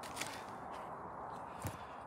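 A small folding knife knocks twice on a wooden cutting board, about a second and a half apart; the second knock is duller and heavier. A steady faint hiss runs behind.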